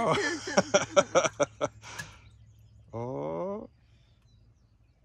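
A girl giggling, a quick run of short laughs, followed about three seconds in by a brief rising vocal sound.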